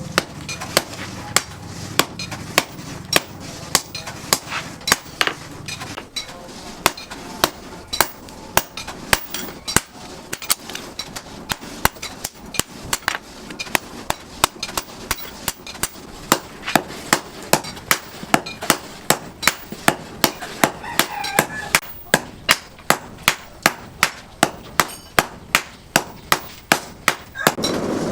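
Forging hammer striking chainsaw steel, a steady run of sharp metallic blows about two a second: the steel is being hammered into a kukri blade.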